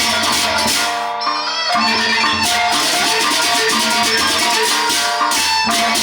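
Gendang beleq ensemble playing: large Sasak drums and cymbals beating a dense, driving rhythm under ringing gong and kettle-gong notes. About a second in the texture thins briefly, then the full ensemble comes back in.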